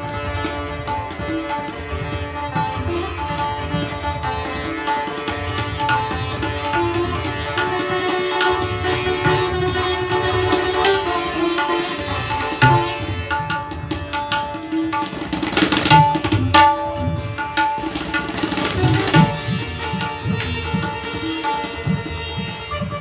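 Sitar playing a fast drut composition in Raag Jogkauns with tabla accompaniment: quick plucked sitar notes over held ringing tones, with the tabla's deep bass strokes running underneath.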